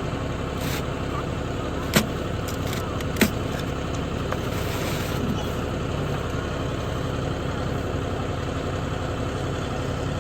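A 1960s New Holland hay baler running behind a tractor: a steady mechanical drone with two sharp clacks about two and three seconds in.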